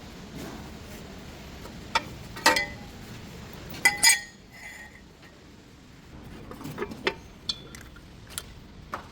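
Metal tools and parts clinking and knocking: a series of sharp strikes, a few of them ringing briefly, the loudest pair about four seconds in.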